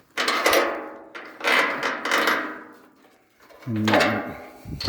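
Floating dock steps knocking and clanking as they are lifted and tilted into place to line up their bolt holes: three loud knocks with ringing tails, then a short low pitched sound near the end.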